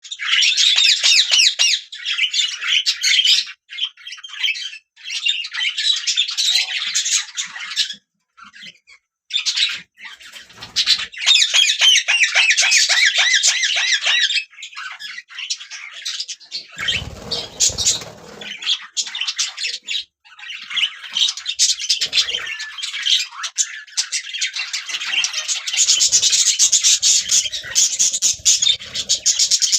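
Budgerigars chirping and warbling in fast, busy chatter, pausing briefly about a third of the way in.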